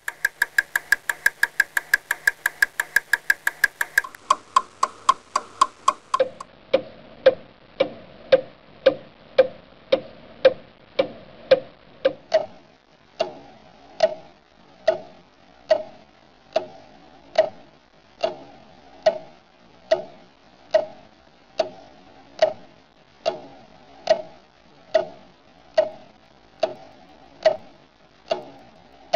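Clock ticking, starting as a very fast run of ticks and slowing in steps to about one tick a second, each tick with a short ringing tone that drops in pitch as the pace slows.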